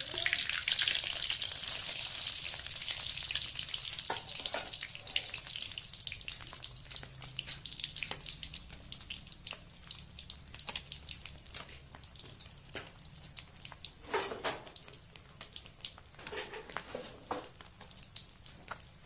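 Small whole fish frying in hot oil in a wok: a crackling sizzle full of sharp spits and pops, loudest at first and gradually dying down. A spatula works the fish near the start, and a few louder bursts of crackle come about two-thirds through.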